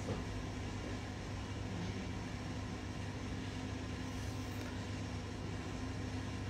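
Steady hum and hiss of an air conditioner running in a room, with no other events.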